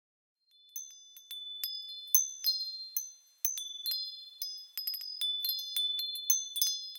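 Wind chimes ringing: a loose run of high, bright struck notes that overlap and ring on, starting about half a second in.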